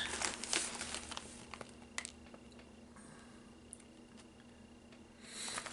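Potato chip bag being handled: scattered soft crackles and clicks of the bag, then louder crinkling starting near the end.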